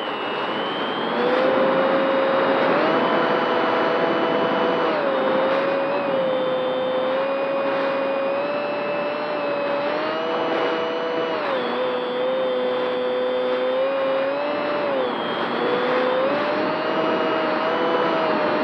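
Radio-controlled model airplane's motor and propeller heard from its own onboard camera: a steady whine that steps up and down in pitch several times as the throttle changes, over a constant rush of wind.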